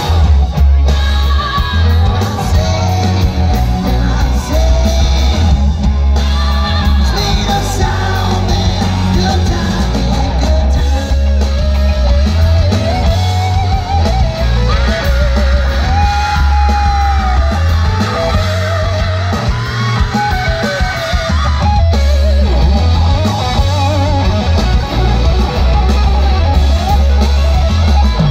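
Live rock band playing loudly: electric guitars with a wavering, bending lead line, bass guitar and drums, with singing.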